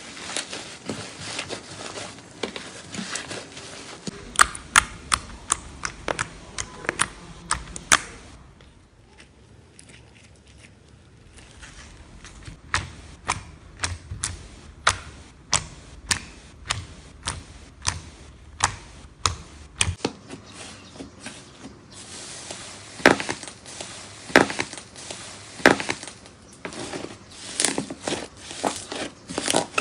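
Slime being squeezed and poked, giving irregular sharp clicks and pops of trapped air over a soft crackle. The clicks ease into a quieter stretch about eight seconds in, then return and grow louder and denser near the end.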